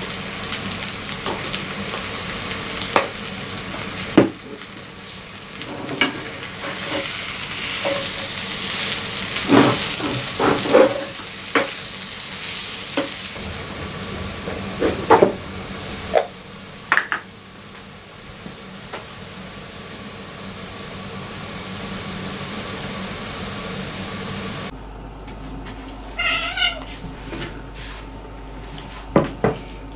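Spiced potato filling sizzling in a frying pan while a metal spatula stirs and scrapes it, with scattered clicks and taps. A domestic cat meows, most clearly once about a second after the sizzling cuts off near the end.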